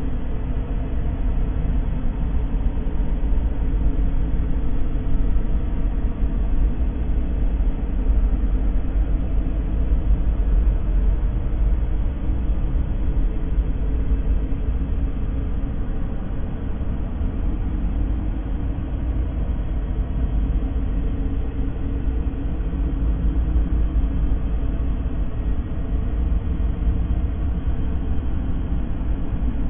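Steady, unchanging noise, strongest in the deep bass and thinning toward the top, with no breaks or events: a continuous sleep-noise track.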